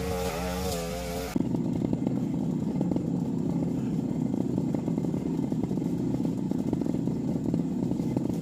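Backpack two-stroke brush cutter engine running at speed, its pitch wavering as the throttle is worked. About a second and a half in, the sound changes abruptly to a lower, rougher steady running that goes on without change.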